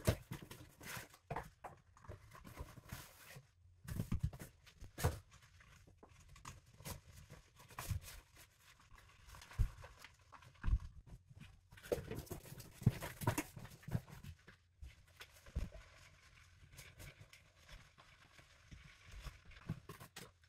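Cardboard boxes and juicer parts being unpacked by hand: irregular knocks and thumps as boxes and parts are set down on a wooden worktop, with packaging rustling and cardboard flaps scraping in between.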